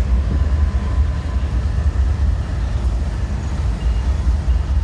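Freight train rolling past: a steady, loud low rumble.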